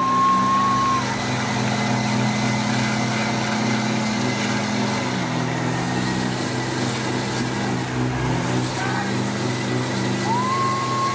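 Big modified trucks' engines running steadily, the revs shifting briefly about halfway through and again a few seconds later. A single held tone slides up, holds and slides down at the very start, and the same tone comes again near the end.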